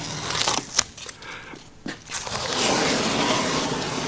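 Masking tape being peeled off a car's freshly painted body and chrome trim, a crackling rip. A few sharp clicks come in the first two seconds, then a steady peeling from about two seconds in.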